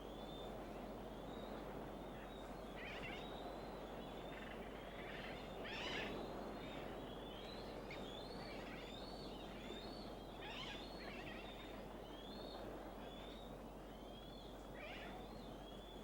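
Faint seabird colony calling: many short, high chirping calls overlapping throughout, over a steady low hiss.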